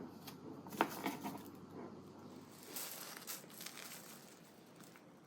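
Crinkling and rustling of a disposable newborn diaper and its tape being handled, in short scattered crackles, the sharpest about a second in and a busier patch near the middle.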